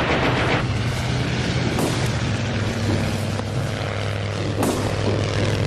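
Propeller aircraft engine droning steadily, with two brief sharp sounds about two seconds and four and a half seconds in.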